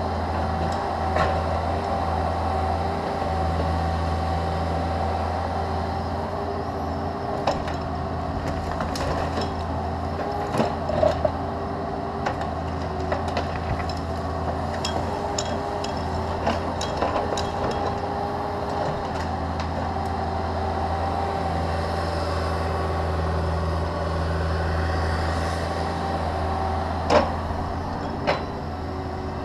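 Caterpillar 305.5E2 mini excavator's diesel engine and hydraulics running steadily under load, a constant drone with a steady pitched tone over it, while the bucket works a tree stump out of the ground. Scattered sharp knocks and snaps of wood and roots, the loudest near the end.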